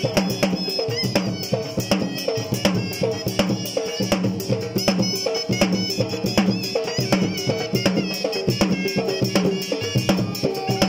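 Dhol, a two-headed barrel drum, beaten with sticks in a fast, steady rhythm, playing Lewa dance music with a melody line over the drumming.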